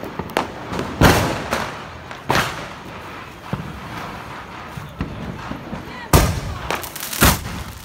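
Firecracker and firework bangs: several sharp explosions at uneven intervals, the loudest about a second in, just after two seconds and about six seconds in, with fainter pops between.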